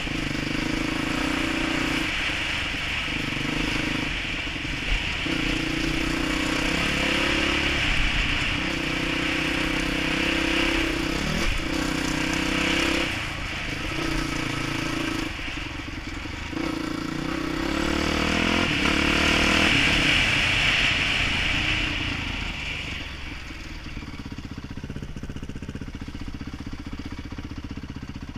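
Dirt bike engine under way, the throttle opening and easing off every second or two so the engine note steps up and down. About three-quarters of the way through it drops to a quieter, steadier running note as the bike slows.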